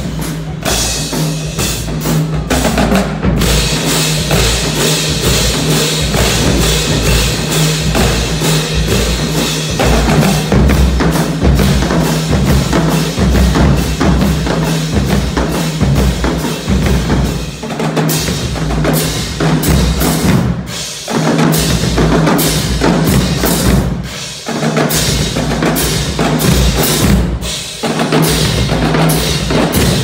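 High school drumline playing a percussion cadence: snare and tenor drums over pitched bass drums, with hand cymbals crashing and a heavy cymbal wash in the first third. The whole line stops together for a moment several times in the second half.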